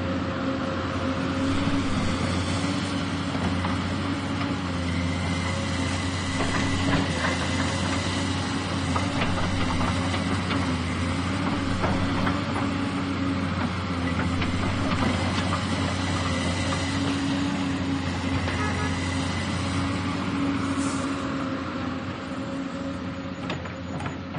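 Excavator working: its engine runs steadily under a held high whine, with scattered short metallic knocks, easing off near the end.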